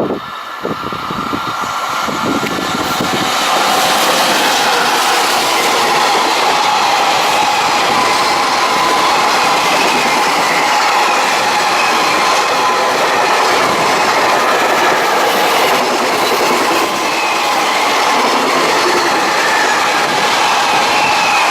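Freight train running past on the rails: wheels on track, building over the first few seconds and then steady, with faint thin squealing tones from the wheels.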